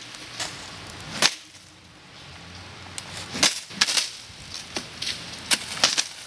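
Irregular sharp clicks, about seven of them, the first alone and the rest closer together in the second half, over a faint steady hiss.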